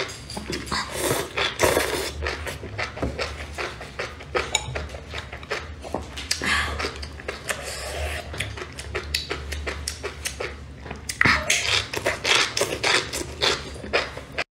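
Close-miked slurping and chewing of noodles from a spicy broth: repeated wet slurps and smacking mouth clicks, with louder slurps about a second in and again near the end.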